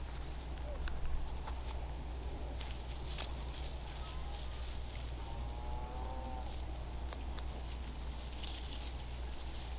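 One long, wavering livestock call about five seconds in, over a steady low rumble and a few faint clicks.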